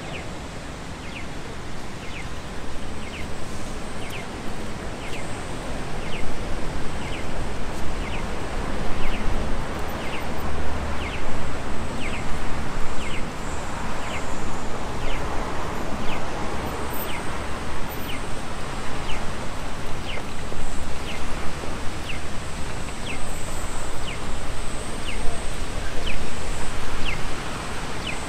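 Audible signal of a Japanese pedestrian crossing giving short, slightly falling electronic chirps, about three every two seconds, starting about a second in, which marks the walk light as green. It sounds over a steady wash of street and wind noise.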